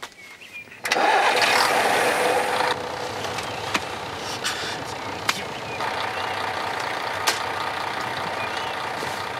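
Truck engine starting about a second in, running loudest for the first two seconds, then settling into a steady idle with a few sharp clicks. The broken-down truck is running again after repair.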